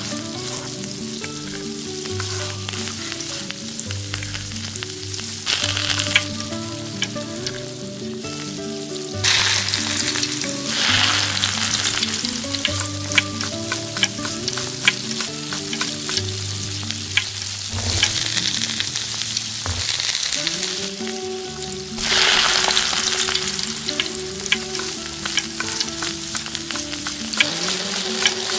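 Diced potato, onion and tomato frying in hot oil in a miniature steel wok, a steady sizzle that swells louder a few times, with small clicks of a fork against the pan.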